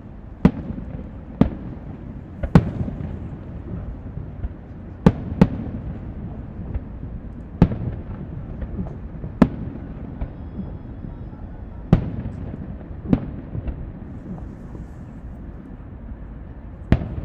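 Fireworks display: about ten sharp bangs of bursting aerial shells, irregularly spaced one to four seconds apart, over a continuous low rumble.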